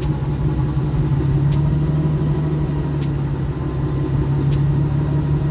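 Nissan 240SX car engine idling steadily at about 700 RPM, with a steady high-pitched whine over it from the alternator pulley.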